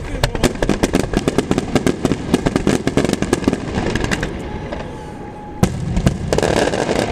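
Starmine fireworks display: a rapid string of launches and shell bursts popping several times a second, thinning out about four seconds in. A brief steady whistle follows, then two sharp bangs about half a second apart and a lingering crackle near the end.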